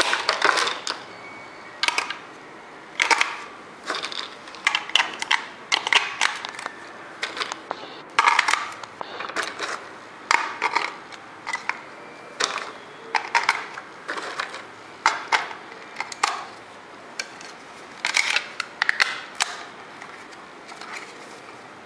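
Hands handling a small plastic battery charger and its packaging: irregular clicks, taps and crinkly rustles, coming in short clusters with brief pauses between them.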